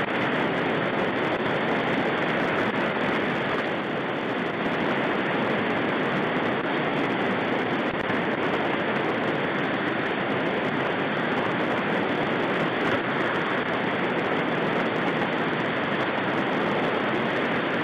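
Shallow river rapids rushing over rocks, a steady, unbroken noise of fast whitewater close by.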